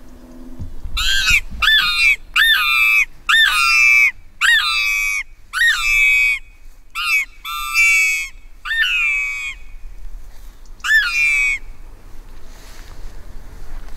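Predator call (a fox lure) sounded in a series of about ten shrill, piercing squeals, each dropping in pitch, with a longer pause before the last one, meant to draw in a fox or other predator.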